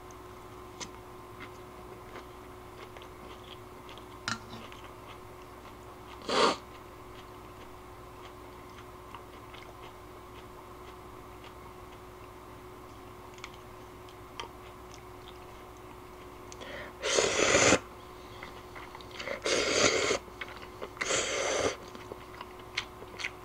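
Eating ramen noodles: faint clicks of chopsticks and chewing, a short slurp about six seconds in, then three louder noisy slurps of noodles close together in the second half.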